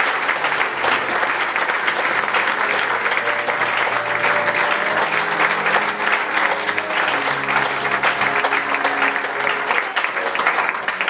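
Applause from many hands clapping, with held instrumental notes playing underneath.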